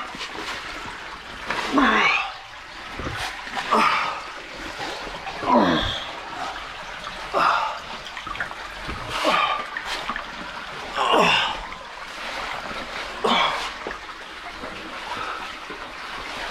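A caver grunting with effort while squeezing through a tight, wet cave passage: about eight short grunts, each falling in pitch, roughly one every two seconds, with water splashing and scraping between them.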